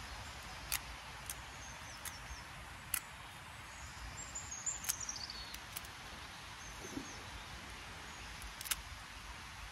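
Pruning shears snipping through dead stems and grasses: about eight sharp, irregularly spaced snips over a steady outdoor hiss. A bird chirps briefly with a falling note about four to five seconds in.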